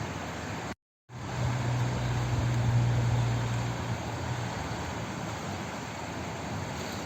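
Steady rush of flowing water, broken by a sudden drop to silence for about a third of a second just under a second in. When it returns, a low hum sits under the water for about three seconds before fading.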